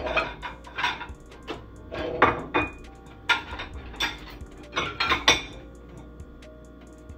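Clean dishes and cutlery clinking and clattering as they are lifted out of a dishwasher rack and set down on the counter: a run of sharp clinks that thins out over the last couple of seconds.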